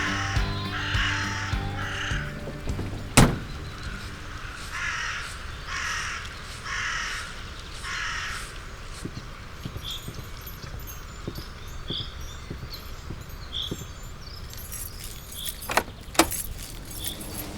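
Crows cawing: two bouts of repeated harsh caws through the first half. A single sharp knock comes about three seconds in, faint short high chirps follow later, and two sharp clicks come near the end.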